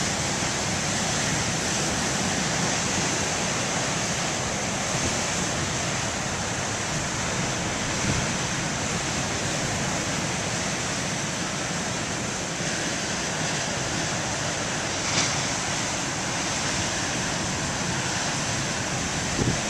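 Ocean surf breaking and washing on the shore, mixed with steady wind buffeting the microphone.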